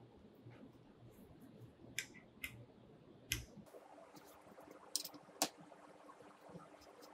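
Handling noise on a take-down recurve bow riser: about five sharp clicks and taps, two around two seconds in, one a little after three seconds, and two around five seconds in, over a faint hiss.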